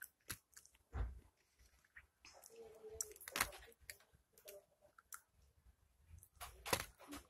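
A person chewing chocolate: scattered soft clicks and smacks from the mouth, with a faint short vocal sound about two and a half seconds in.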